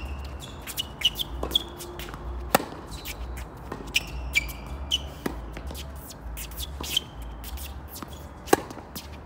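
Tennis rally on a hard court: several sharp pops of racket strikes and ball bounces, the loudest near the start, about two and a half seconds in and near the end, with short sneaker squeaks on the court between shots.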